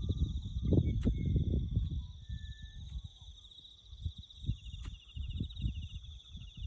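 Crickets chirping in a steady, rapid high trill, joined about halfway through by a second, slightly lower trill. Underneath come irregular low thuds and scuffing, heaviest in the first two seconds, with a couple of sharp clicks.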